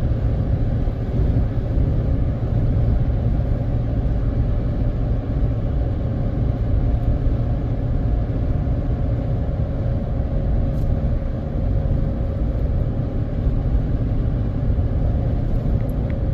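Steady rumble of a vehicle cruising on a highway, road and engine noise with a faint steady hum.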